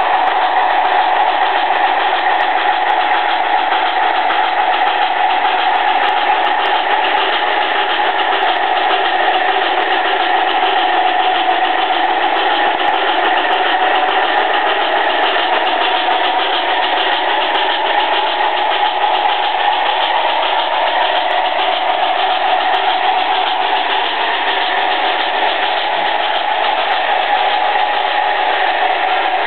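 HO-scale model train running on its track: the electric motors of a metal MTH GS-4 4-8-4 steam model and a Märklin Alco PA-1 diesel model hum steadily under the rolling noise of the wheels on the rails. The hum sags a little in pitch past the middle and rises again near the end.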